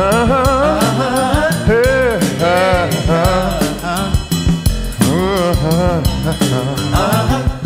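Oldies-style rock and roll production music: a drum kit keeping a steady beat under a lead line whose notes bend and slide.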